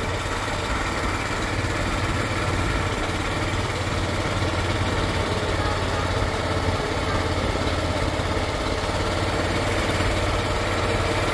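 Motorboat engine running steadily, a low drone under a constant hiss, heard from on board.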